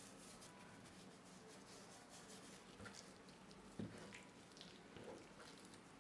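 Faint wet squishing of raw chicken breast pieces being rubbed with salt and pepper by gloved hands on a wooden cutting board, with a few scattered soft knocks, the clearest a little past the middle.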